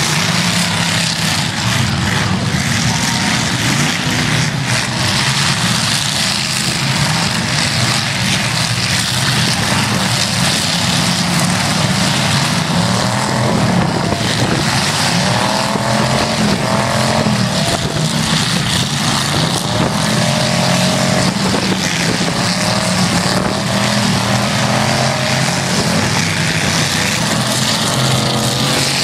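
Several demolition derby cars' engines running loud and revving up and down again and again, with no let-up.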